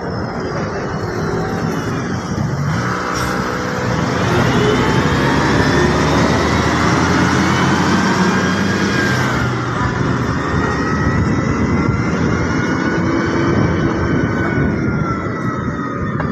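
Street traffic: a city bus's engine running loud as it passes and pulls away, and a siren slowly rising and falling over the top.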